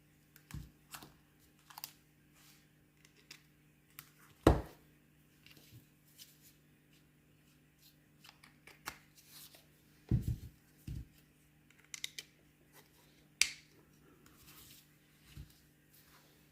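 Hands handling small plastic gadgets and a USB cable: scattered clicks, taps and rustles, the sharpest a click about four and a half seconds in and a knock about ten seconds in, over a faint steady hum.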